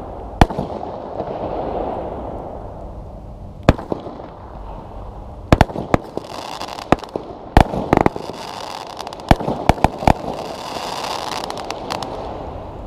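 A 25 mm fireworks cake (Clausse Artifices Thunderstruck, 102 shots) firing: about a dozen sharp bangs of shots launching and bursting at irregular intervals, coming faster from about the middle onward, with a hiss between them.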